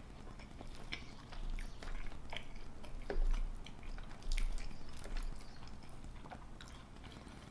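A person chewing chili cheese fries, with scattered small mouth clicks and a few louder bites.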